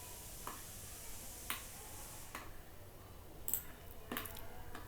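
Computer mouse clicks: a handful of single, sharp clicks at irregular spacing over a faint steady background hum.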